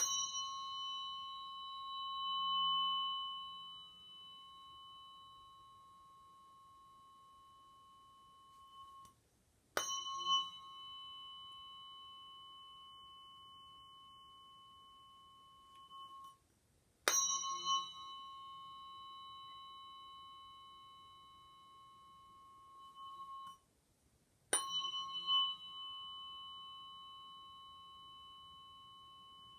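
A tuning fork struck four times, about every seven to eight seconds. Each strike is a sharp tap followed by a clear, high ringing tone that slowly fades and dies away just before the next strike. The first ring swells louder for a moment about two to three seconds in.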